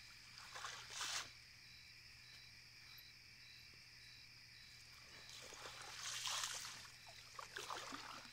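A nylon cast net is dragged and lifted out of shallow water with splashing and dripping, once about a second in and again more broadly around six seconds in. Under it runs a steady high-pitched trilling of night insects.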